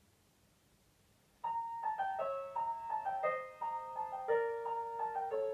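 Near silence, then about a second and a half in a piano introduction to a song begins: a simple melody of single notes, a few to the second.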